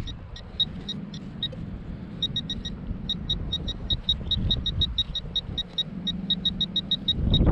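Handheld metal-detecting pinpointer beeping rapidly, about six short high beeps a second with a brief pause about two seconds in, signalling metal close to its tip in the dig hole. Wind rumbles on the microphone underneath.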